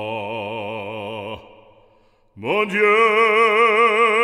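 Background music: a man singing a French hymn in an operatic voice with wide vibrato. One held note fades out about a second and a half in, and after a short pause a higher, louder held note starts.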